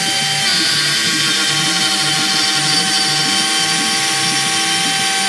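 CNC router spindle running with a steady high whine while its bit cuts grooves in plywood. Lower tones underneath shift in pitch in steps.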